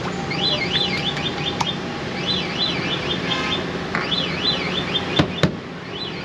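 An electronic alarm warbling in repeated bursts, each a few quick up-and-down sweeps, coming back about every second and a half. A steady low hum runs underneath, and there are two sharp knocks about five seconds in.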